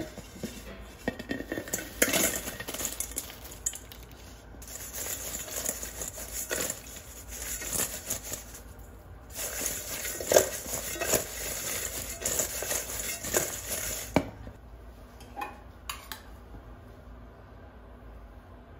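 Freshly fried potato wedges tossed in a stainless steel mixing bowl: a rattling clatter with sharp clinks of potato against metal. After about 14 seconds it dies down to a few light, isolated clicks.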